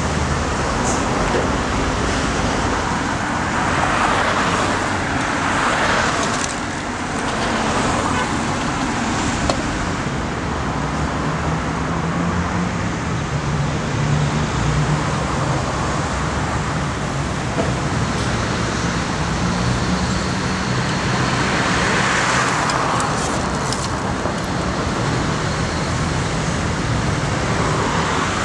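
Road traffic: a steady rush of passing cars and engines, with louder vehicles going by about five seconds in and again about twenty-two seconds in.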